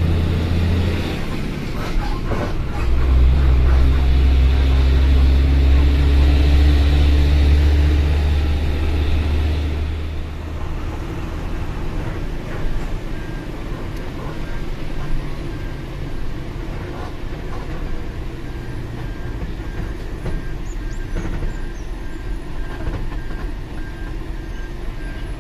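Six-cylinder diesel engine of a Fuso Fighter dump truck heard from inside the cab, pulling loud and low under throttle. The engine note dips briefly about a second in, then eases to a quieter, steady cruise after about ten seconds.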